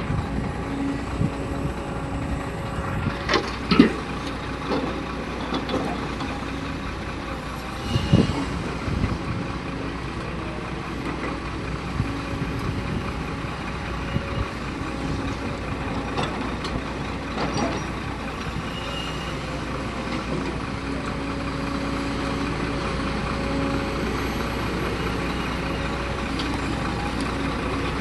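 Heavy diesel machinery, an excavator working beside a dump truck, running steadily with a constant hum and whine. A few sharp knocks and thuds stand out, loudest about four and eight seconds in.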